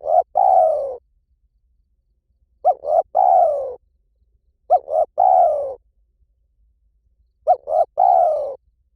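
Spotted dove cooing: four calls two to three seconds apart, each two short notes followed by a longer note that falls in pitch. It is a 'liu tan' style call, played as a lure to get a captive dove to call back.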